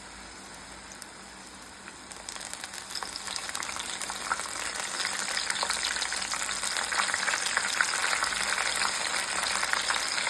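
Batter-coated corn kernels deep-frying in hot oil, a steady crackling sizzle from a fresh batch. The sizzle grows louder and more crackly about two seconds in.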